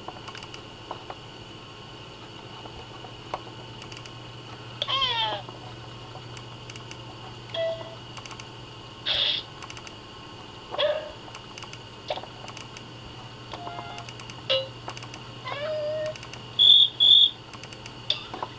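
A string of short custom alert sounds played one after another from a 1991 Macintosh PowerBook 100's built-in speaker, about eight of them a second or two apart, several with sliding pitch. Soft clicks fall between them.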